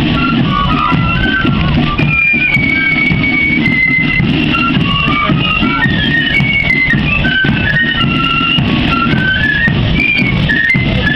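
Marching flute band playing a tune: many flutes in unison, with drums beating underneath.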